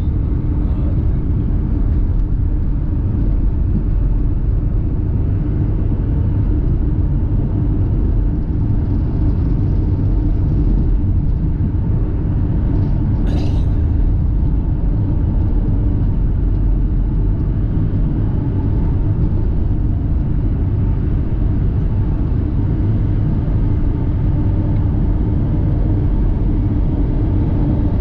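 Car on the move: a steady low rumble of engine and road noise, with one short click about halfway through.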